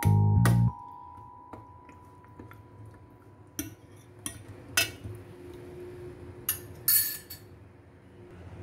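A metal spoon clinking against a stainless steel bowl while stirring raw spare ribs in marinade. There are about six sharp clinks in the second half, one of them ringing briefly.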